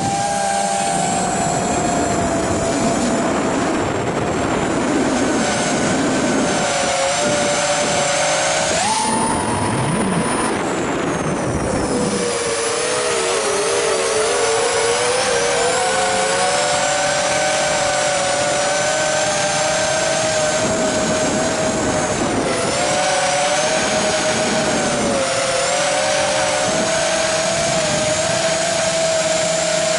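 FPV flying wing's electric motor and propeller whining, heard from the onboard camera over a rush of wind. The pitch jumps up about nine seconds in, then sags and wavers a few seconds later before settling back to a steady whine.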